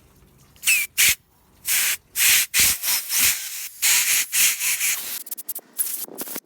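A string of short, loud hissing blasts from a pressurised spray nozzle, cleaning out the passages of a Subaru SG550 generator's carburetor, followed by a few shorter, fainter puffs near the end.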